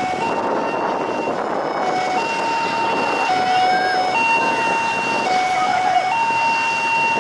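Emergency-vehicle siren sounding a two-tone hi-lo call, switching steadily between a higher and a lower note about once a second, over a constant background noise.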